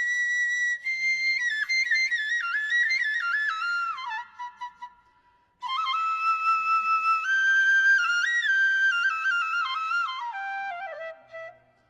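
Background music: a solo flute playing a stepwise melody in two phrases, with a short break about five seconds in and the second phrase falling lower before it fades.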